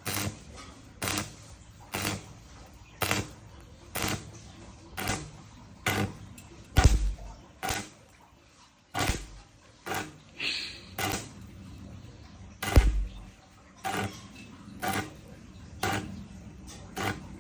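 Sharp clicks or taps repeating steadily about once a second, a few of them with a heavier low thump.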